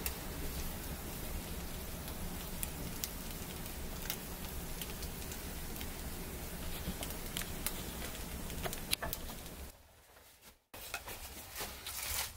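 Wood fire crackling in a small clay stove: sharp irregular pops over a steady rushing hiss. It cuts out about ten seconds in, and a few light clicks and knocks follow.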